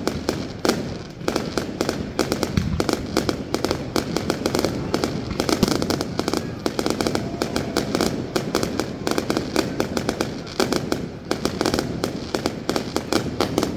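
Fireworks going off in a dense barrage of rapid bangs and crackling pops, several a second, thinning out near the end.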